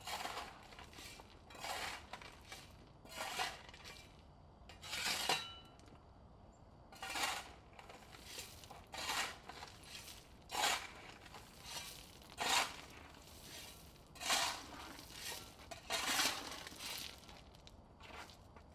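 A shovel digging into and scooping rocks, each stroke a gritty scrape and clatter of stones, repeating unevenly about once every second or two.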